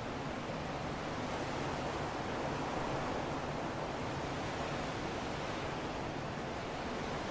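Steady rushing wind, an even hiss that swells slightly a few seconds in.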